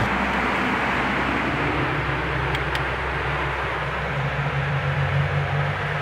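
Two-door refrigerator running with its freezer open: a steady low hum under an even hiss, with two faint ticks near the middle.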